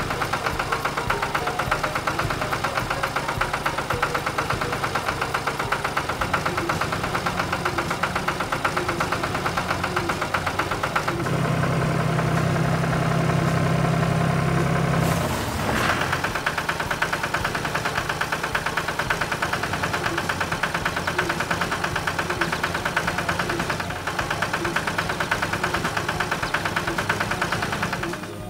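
Tractor engine sound effect running with a fast, even chugging. For a few seconds past the middle a deeper steady drone joins in, cut off by a sharp click.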